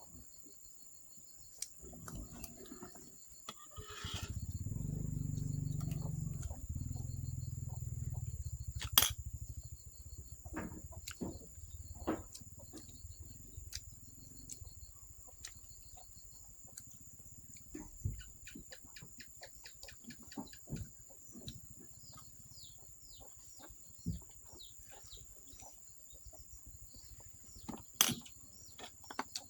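Field ambience: insects trilling steadily at a high pitch and many short bird chirps, most of them in the second half. A low rumble swells about four seconds in and fades out by about ten, and sharp clicks or knocks come now and then, the loudest about nine seconds in and near the end.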